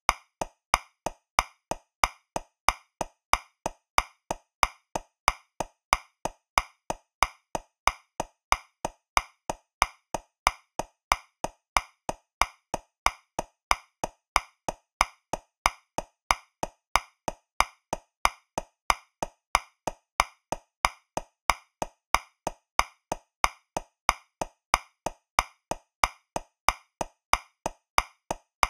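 Metronome clicking at 185 beats per minute, about three evenly spaced wood-block-like clicks a second. Every other click is accented, marking the downbeat of 2/4 time.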